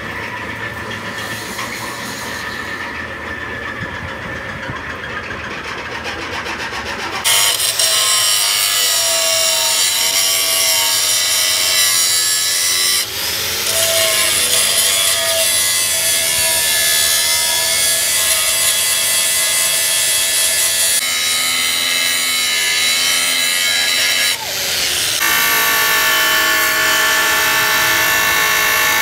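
Angle grinder with a cut-off disc cutting into the steel barrel of a hydraulic cylinder: a loud, high-pitched grinding of disc on metal that starts suddenly about seven seconds in, after a quieter stretch. It dips briefly twice, about 13 and 24 seconds in, as the disc eases off the cut, then carries on.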